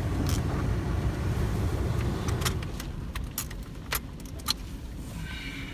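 Low rumble of a car that eases off about two and a half seconds in, then a scatter of sharp clicks and a jangle of keys as the car is stopped and the key handled.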